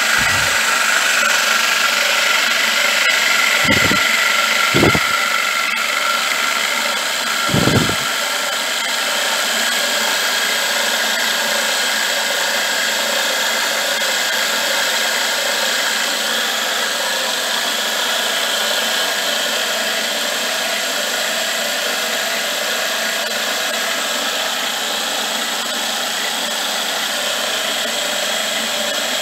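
Milling machine running with its end mill cutting metal on a rotary table: a steady machining hum and whine, with a few short low thumps in the first eight seconds.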